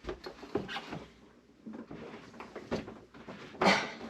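Stair-climbing dolly loaded with a very heavy water softener knocking and clunking against the stairs as it is dragged up them, in a string of irregular knocks, with a louder rush of noise near the end.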